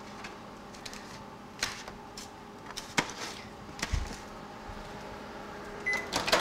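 Microwave oven running with a steady hum, broken by a few light knocks; near the end the hum stops and the microwave gives a short high beep to signal the heating cycle is done.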